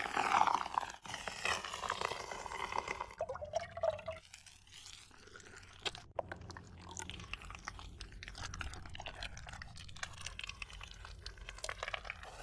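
Pomegranate seeds crunching and squishing under a wooden pestle in a glass, followed by quieter scattered clicks and scrapes of food preparation.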